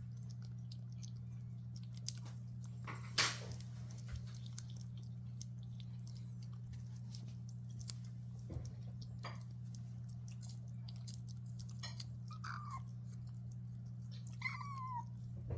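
Cat eating, with small crunching and chewing clicks scattered throughout and one louder crunch about three seconds in. A steady low hum runs underneath, and two short high chirps come near the end.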